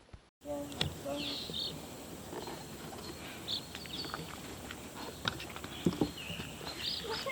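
Baby chicks peeping in scattered short, high calls, with a few soft knocks and rustling as the brooder is handled.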